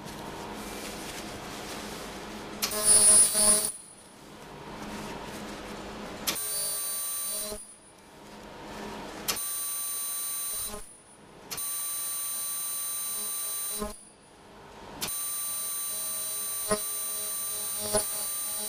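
Ultrasonic sewing machine sealing nonwoven surgical-gown fabric: a steady high-pitched whine that runs for one to three seconds at a time and cuts off in short breaks between runs. A louder, harsher burst comes about three seconds in.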